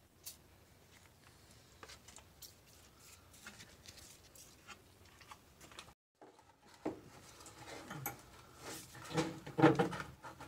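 Scattered light metallic clicks and clinks of hand tools, wrench and socket, working on the downpipe bolts under the car. After a brief break about halfway, the clinks and knocks come louder and closer together.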